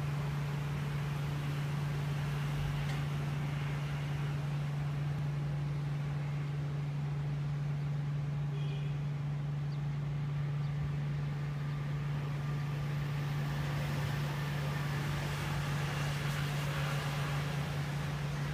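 Steady low machine hum, unchanging throughout, with a few faint high chirps about halfway through.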